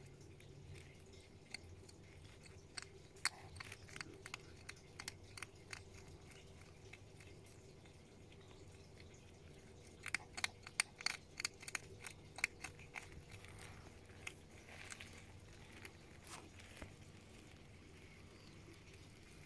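A European hedgehog crunching dry food pellets, in quick runs of sharp crunches: a spell about three to six seconds in, and a louder, denser run around ten to thirteen seconds in.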